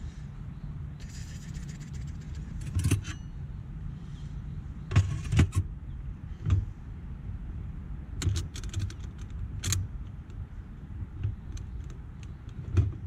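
A metal spoon and a metal camping pot clinking and scraping as food is stirred on a canister gas stove, in scattered sharp clinks, a quick cluster about five seconds in and another near the end, over a steady low rumble.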